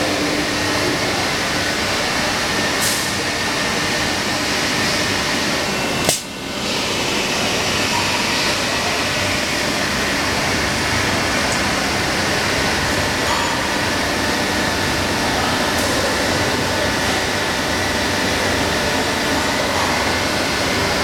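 Steady mechanical noise of an injection molding machine running, with a single sharp click about six seconds in.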